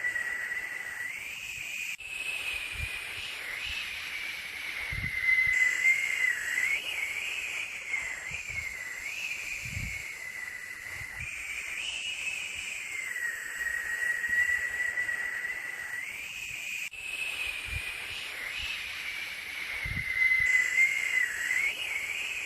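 Looped white-noise sleep track: a steady hiss carrying a high whistle-like tone that wavers up and down in pitch, with a few faint low thumps. The same stretch repeats about every fifteen seconds.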